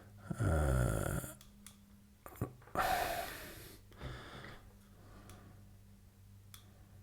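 A person breathing close to the microphone, with a short hum-like vocal sound near the start and a breathy exhale about three seconds in, and a single sharp click about two and a half seconds in, over a faint steady low hum.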